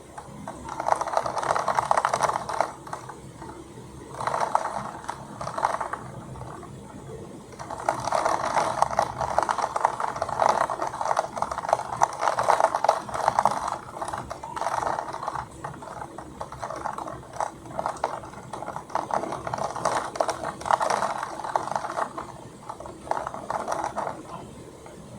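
Heavy storm precipitation pelting and rattling against a hard surface in dense, rapid clicks. It comes in gusty surges that swell and fade every few seconds, and eases near the end.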